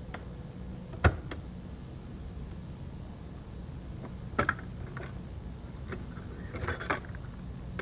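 Piano-key buttons of an Optimus stereo cassette tape deck clacking as they are pressed. There is a sharp clack about a second in, then a double click around four and a half seconds in as the eject key pops the cassette door. Near the end comes a short plastic rattle as the cassette is pulled out, all over a low steady hum.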